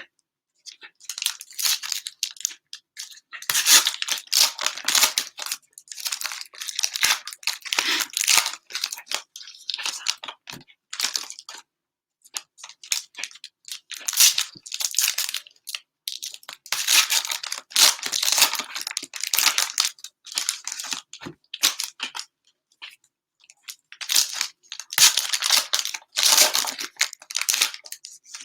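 Plastic cellophane wrappers on trading-card packs being torn open and crinkled by hand, in irregular bursts of tearing and crackling with short pauses between them.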